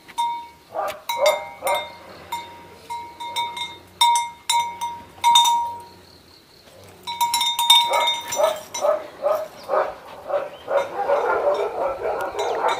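Tibetan Mastiffs moving about with a small bell jingling in short rings and a chain clinking. From about eight seconds a dog gives quick, repeated vocal pulses, about four a second.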